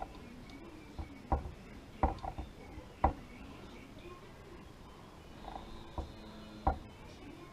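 A few scattered light clicks and taps of small metal gun parts being handled, as a non-rotating trigger pin and its retainer are fitted into the receiver.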